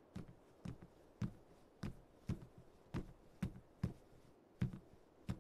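Footsteps on a hard floor: unhurried, even steps, about two a second.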